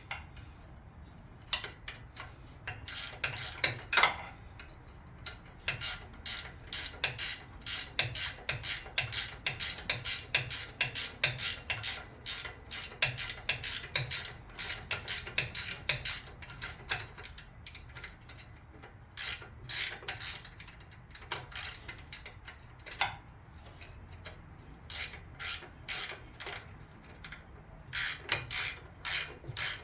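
Socket ratchet clicking in runs of quick back-and-forth strokes with short pauses between, loosening the alternator bracket bolts on a Chevy 350 engine.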